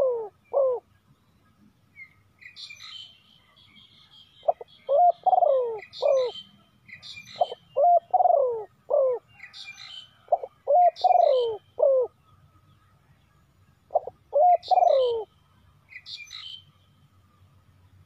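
Spotted dove cooing, a caged decoy calling to lure wild doves. Each phrase is three or four low notes, the last one falling, and the phrase comes four times at roughly three-second gaps. Small birds chirp faintly and high above it.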